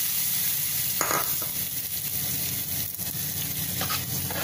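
Hot oil tempering (tadka) sizzling as a steady hiss on the surface of yogurt-and-gram-flour kadhi. A ladle stirring the tempering in gives two short knocks, about a second in and near the end.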